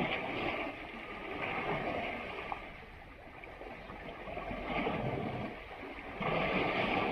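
Water splashing and sloshing in uneven swells that rise and fall every second or two, the loudest near the end.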